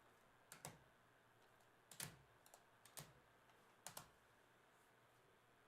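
A handful of sparse, light clicks against near silence, about six in all, two of them close together near the start and two more about two-thirds of the way in.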